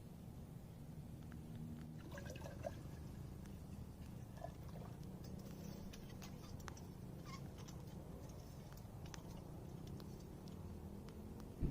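Faint outdoor ambience: a steady low rumble with scattered small clicks and a few short, faint chirps.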